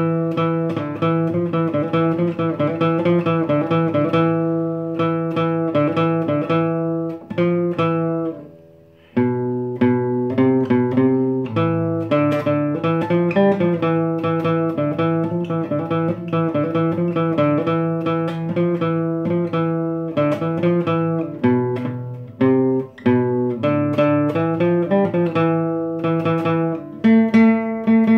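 Classical guitar played solo, picking single notes and chords, with a brief break about eight seconds in.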